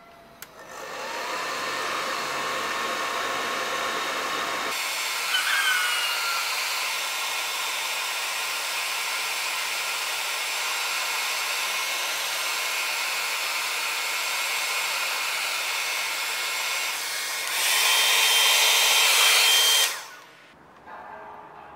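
Hand-held hair dryer switched on with a click about half a second in, spinning up with a short rising whine into a steady whoosh of air, drying a clay pot on the potter's wheel. It gets louder for a couple of seconds near the end, then is switched off and winds down.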